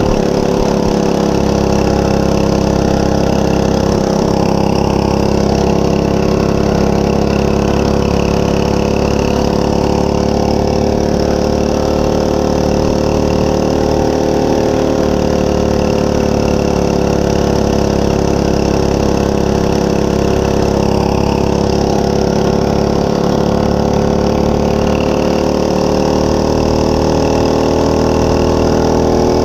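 Monster Moto 105 mini bike's 105cc single-cylinder four-stroke engine running steadily. Its pitch wavers slightly and rises a little near the end.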